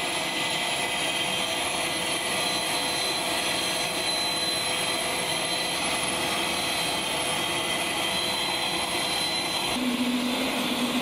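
C-130J Hercules turbine engine running: a steady whine over a rushing hiss, holding one pitch, with a change in tone about ten seconds in.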